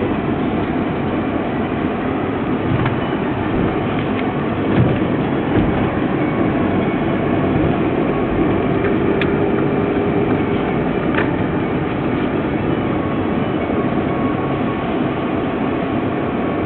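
Steady road and engine noise of a vehicle driving over an uneven, potholed road surface, with occasional knocks and rattles as it goes over bumps; the strongest bump comes about five seconds in.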